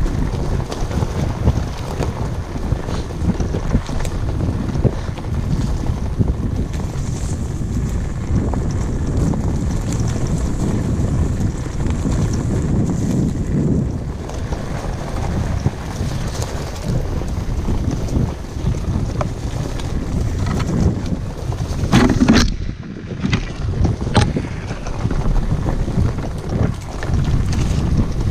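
Steady low rumbling of wind buffeting the microphone, with a few sharp clicks about three-quarters of the way through.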